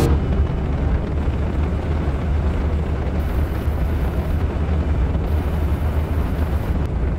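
Motorcycle riding along the road, a steady low rumble of engine and road noise.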